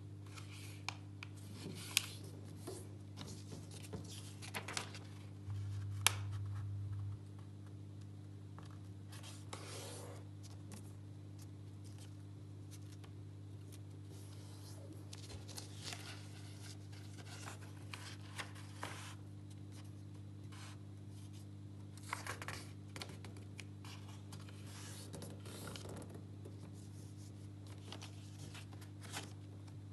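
A sheet of paper being folded by hand: irregular rustles and scrapes as fingers slide along and press down the creases, with a few sharp crisp clicks. A steady low hum runs underneath and grows louder for a moment about six seconds in.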